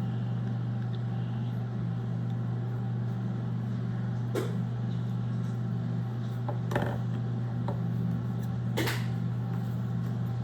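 A steady low electrical hum, with three short scraping clicks about four and a half, seven and nine seconds in.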